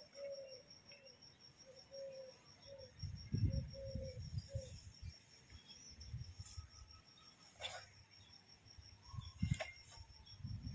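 An insect chirps in a steady, high-pitched pulsing trill. In the first few seconds a bird calls in a run of short low notes, and a few low thumps and brief clicks come and go.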